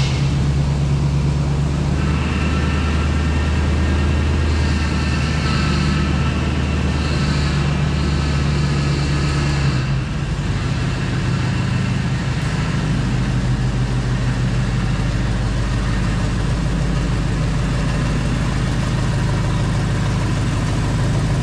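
Square-body GM plow truck's engine idling steadily. Its low note changes about ten seconds in as the truck is driven forward onto the two-post hoist.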